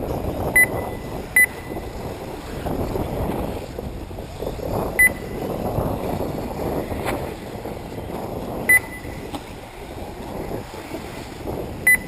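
Five short, high electronic beeps at uneven intervals over a steady rush of wind on the microphone. The beeps are typical of an RC race lap-timing system registering buggies crossing the line.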